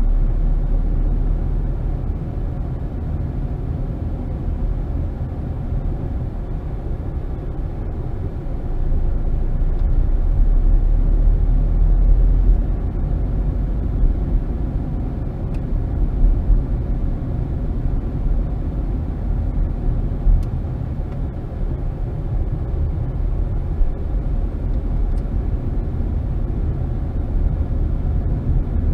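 Low, steady rumble of a car driving slowly through town streets, with engine and tyre noise heard from inside the cabin. It swells for a few seconds about a third of the way in, and there are a few brief bumps after that.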